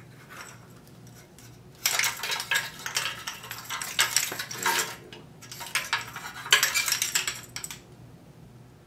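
Plastic ignition coil packs and spark plug wires on a GM 5.3L V8 clattering and clicking as they are handled and pulled off the engine, in two spells of a few seconds each.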